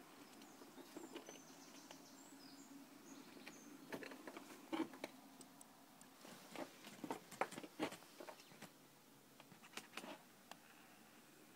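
Faint scratchy rustling and clicking of fursuit fur rubbing against the phone's microphone, irregular and quiet, with a few faint high chirps about a second in.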